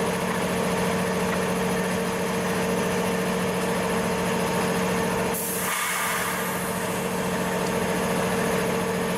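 A heavy diesel engine idling steadily, with a short burst of hiss about five seconds in.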